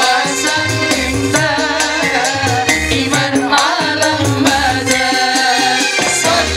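A sholawat group singing a devotional song into microphones, men's and women's voices, over band accompaniment with a steady bass beat and percussion.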